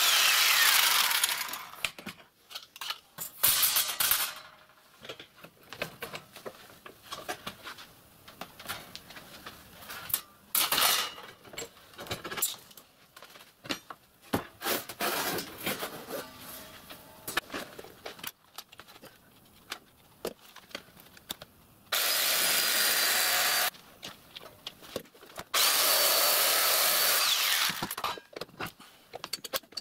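Electric jigsaw with a metal-cutting blade cutting thin brass sheet, stopping about a second and a half in. Then the brass sheet is handled and shifted on the bench with scattered knocks and rattles, and the jigsaw runs twice more near the end, for about two and three seconds.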